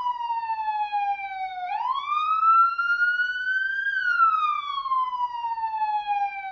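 Police siren in wail mode: a single tone slides slowly down, sweeps back up about two seconds in, then falls slowly again to the end, one full rise and fall taking about five seconds.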